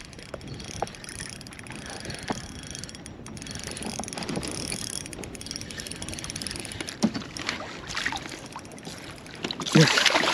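A kayak on the water while a hooked bass is played and brought alongside: water splashing and sloshing with scattered light knocks, getting louder near the end.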